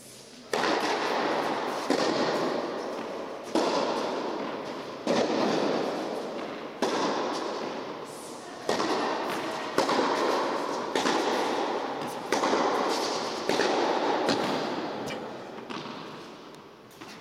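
Tennis ball struck back and forth in a rally, with about a dozen sharp racket hits spaced roughly a second and a half apart. Each hit rings out in the long echo of an indoor tennis hall. The hits fade out near the end.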